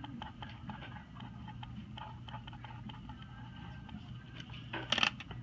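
Pen writing on a paper worksheet: faint, irregular scratches and small taps of the tip, with a louder short knock near the end.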